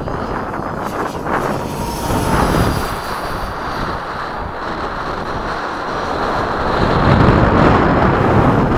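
Electric ducted-fan RC jet in flight, a rushing jet noise with a thin high fan whine that shifts in pitch, mixed with wind buffeting the microphone. The sound grows louder in the last couple of seconds.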